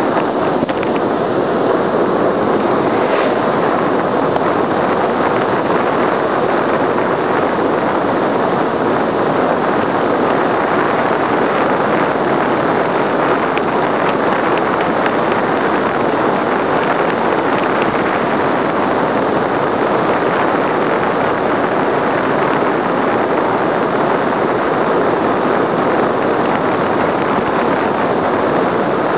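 Steady rush of wind over the microphone of a bike-mounted camera on a fast road descent.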